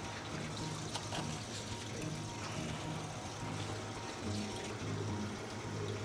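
Wet squishing of slippery monkfish skin being rubbed with salt by hand in a stainless steel pan, to clean off its slime, over soft background music.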